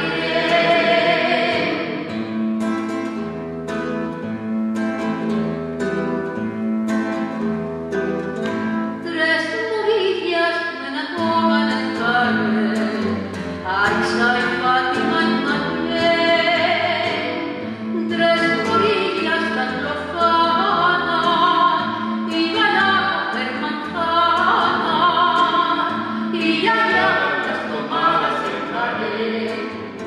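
A woman singing long, held notes with vibrato, accompanied by a nylon-string classical guitar.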